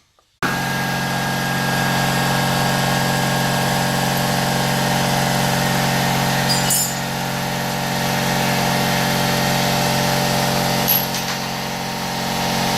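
A motor-driven machine running at a steady speed with a constant hum, starting suddenly about half a second in.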